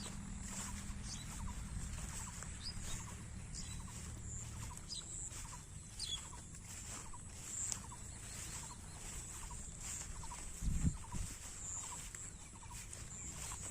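Small animal calls repeating about every half second over a steady high-pitched drone, with a low thud about eleven seconds in.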